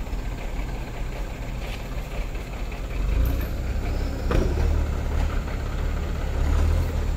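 Truck engine running low and steady, growing a little louder about three seconds in, with a single sharp knock about four seconds in.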